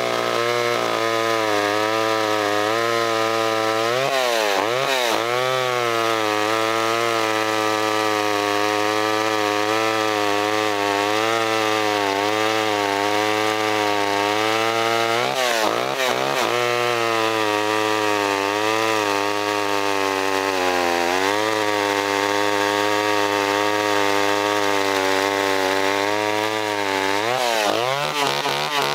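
Small vintage top-handle two-stroke chainsaw running at full throttle while cutting through a log. The engine note sags and recovers several times as the chain bites under load.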